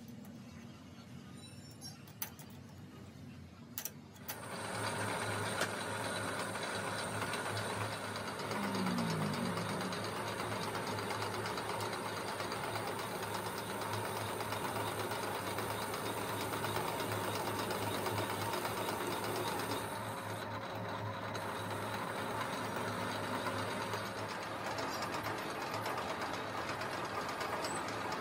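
A few light clicks, then about four seconds in a metal lathe starts and runs steadily, a constant low hum under a rough scraping noise as the tool cuts the spinning steel crankshaft.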